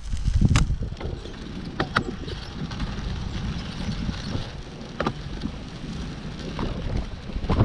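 Wind buffeting the microphone on an open beach, a gusting low rumble over a steady hiss, with a few scattered sharp clicks.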